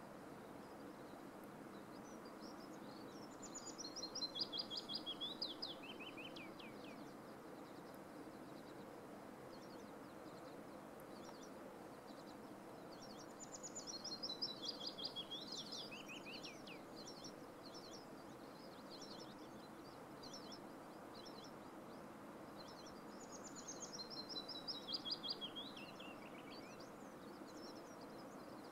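A small songbird sings three times, about ten seconds apart, each song a quick run of notes falling in pitch and ending in a short flourish, over a steady soft rushing background.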